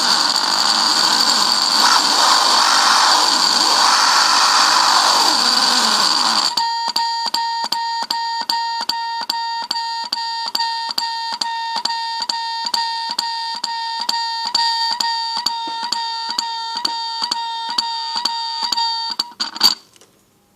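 Homemade electronic noise circuit run on fruit batteries, making a harsh buzzing noise. About six and a half seconds in, it switches to a steady high tone that pulses about three times a second. Near the end it gives a short loud burst and cuts off.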